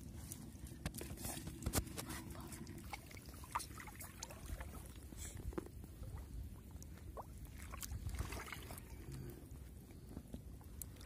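Water dripping and lapping in shallow water as a wet nylon gill net is handled and fish are worked free of it, with scattered small clicks and splashes over a low steady rumble.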